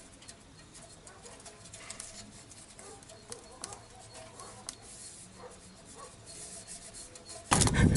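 Faint rubbing and small clicks of hands pressing and smoothing a metal wrap onto a motorcycle muffler. A much louder noisy sound starts abruptly near the end.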